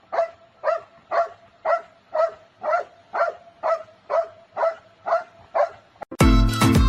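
A dog barking over and over at an even pace, about two barks a second, a dozen in a row. Loud music starts about six seconds in.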